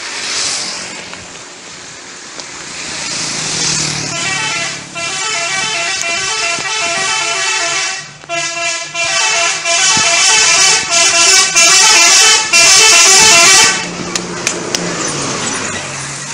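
Telolet musical air horn on a Sedya Mulya bus, playing a long run of quickly changing notes. It starts about four seconds in, is loudest in the second half, and cuts off suddenly near the end.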